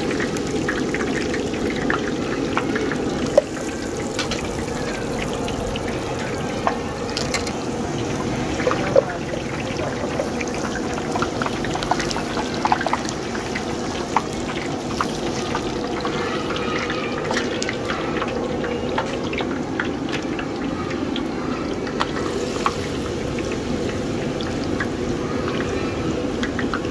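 Thin batter trickling through a perforated metal cup into hot oil in a large kadhai, the oil sizzling steadily as the strands fry, with scattered small pops.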